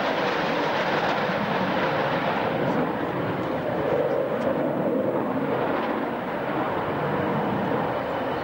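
Jet fighter's engine noise from a display flight overhead, a steady roar whose hissing top fades about three seconds in as the aircraft moves off.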